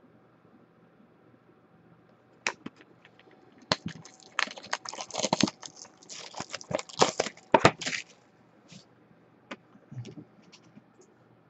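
Plastic shrink wrap on a sealed trading-card hobby box crinkling and crackling as hands handle it, in a dense run of crackles for about four seconds in the middle, with a few scattered ticks before and after.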